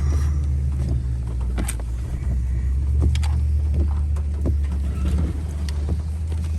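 A vehicle driving over a rough, flooded road: steady low engine and road rumble, with scattered short knocks and rattles.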